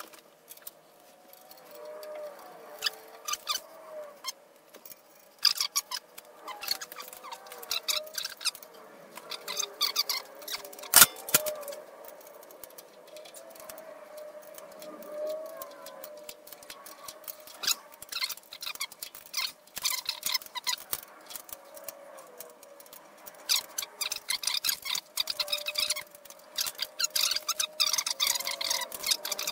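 Irregular metallic clicks and clinks of hex-head bolts being fitted and tightened by hand under a steel bandsaw table, with one sharp knock about eleven seconds in.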